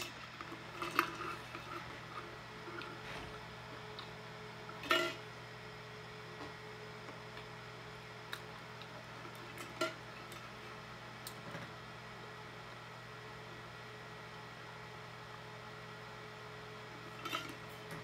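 A few light clinks and knocks from a tumbler of iced tea and its straw being handled, the loudest about five seconds in, over a steady low hum.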